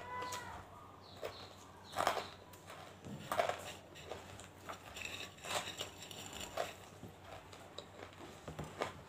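Hard, crystalline banslochan (tabashir) pieces being bitten and chewed, a series of sharp, irregular crunches, loudest about two and three and a half seconds in.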